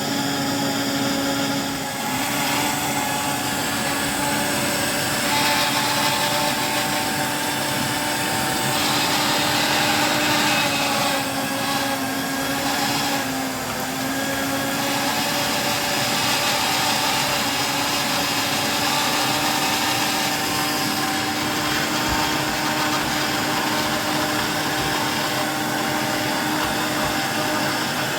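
A small electric motor running steadily, with a humming tone that sags briefly in pitch about halfway through, as if under load.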